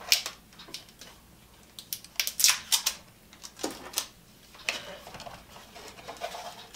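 Hard plastic blender parts being handled: scattered clicks, taps and short rasps as the tape holding a small plastic cup to the new blender is worked loose. The loudest cluster comes about two to three seconds in.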